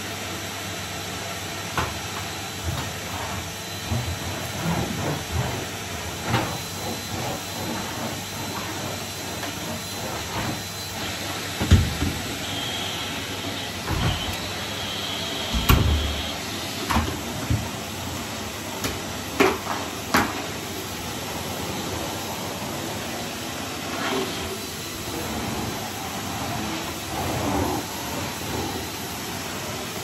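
Henry canister vacuum cleaner running with a steady rush of suction, with the nozzle and wand knocking and bumping several times in the middle stretch.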